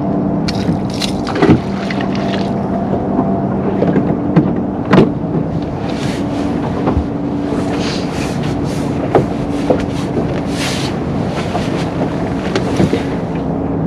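A fishing boat's outboard motor running steadily at trolling speed, with a few sharp knocks and gusts of wind on the microphone.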